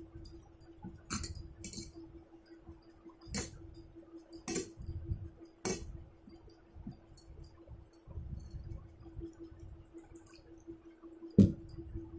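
Eating sounds: chewing that comes and goes, with several sharp clinks of dishes or a glass, the loudest near the end, over a steady faint hum.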